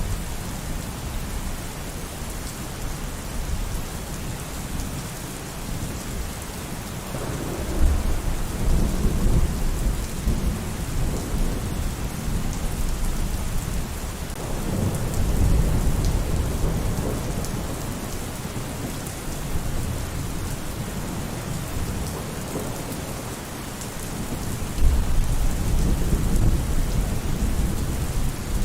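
Steady rain falling, with three rolls of thunder rumbling: about a quarter of the way in, around the middle, and near the end.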